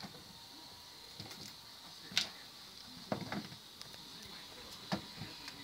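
Tervuren puppies pawing and nosing at a food puzzle box as they try to reach the bowls inside: faint scattered knocks and scratchy clicks, the loudest about two seconds in, a short cluster around three seconds and another knock near five seconds.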